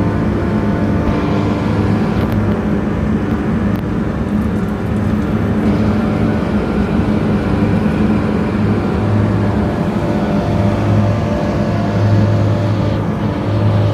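McQuay screw compressor running: a loud, steady machine hum with a strong low tone and a noisy whir above it.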